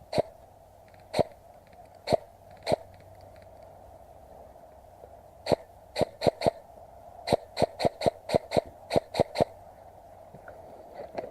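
Airsoft gun firing single shots: four spaced about a second apart, then, after a short pause, a quick run of about a dozen more.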